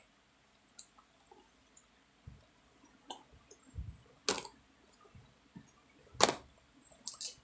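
Clear plastic lidded food containers being picked up and stacked on a table: about four sharp plastic clacks in the second half, the loudest late on, with a dull knock between them.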